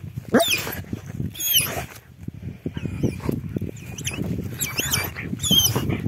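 An excited dog whining in high, sweeping squeals, several times over, with scuffling and rustling underneath.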